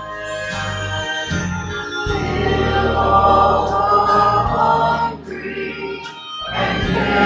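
Church choir of men's and women's voices singing a hymn together, held notes swelling and easing, with a short breath between phrases about six seconds in.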